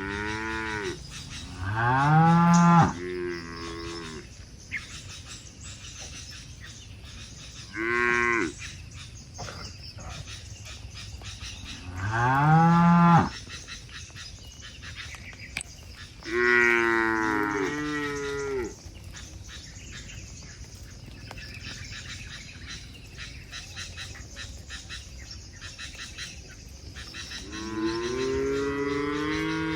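Cattle mooing, about six long calls spread a few seconds apart, the loudest around two and twelve seconds in and a long one near the end.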